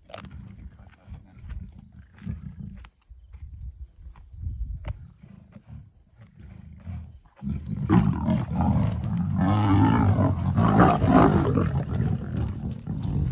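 Lions growling as they fight over a steenbok kill. For the first seven seconds or so there are low growls that come and go, then a sudden, much louder bout of growling starts and builds, higher and fuller, for several seconds before easing near the end.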